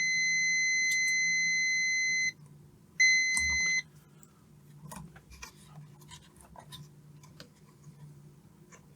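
UNI-T UT61E+ multimeter's buzzer beeping in diode mode, the sign of its probes resting across a shorted part: one steady high beep of about two and a half seconds, then a second, shorter beep of under a second. Faint scattered ticks follow.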